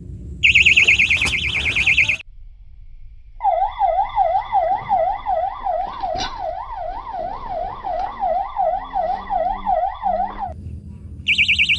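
Electronic fishing-rod bite alarms going off as a fish pulls a rod over. A high, fast-warbling tone sounds for about two seconds, then a lower wailing tone rises and falls about three times a second for around seven seconds, and the high warble returns near the end.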